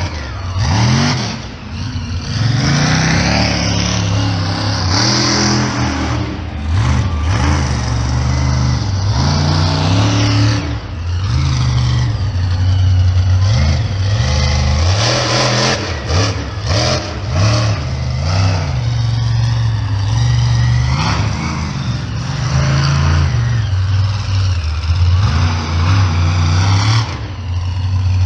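Monster truck engine revving hard, over and over, its pitch climbing and dropping as the truck charges across the dirt and jumps.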